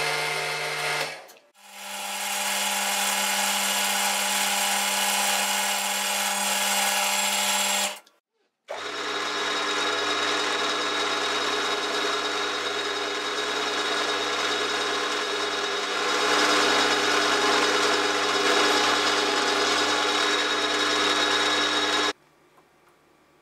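Milling machine running with its cutter machining a metal sphere held in a vise: a steady motor whine with a rough cutting noise. The sound breaks off abruptly twice and resumes, then stops suddenly near the end, leaving only a faint hum.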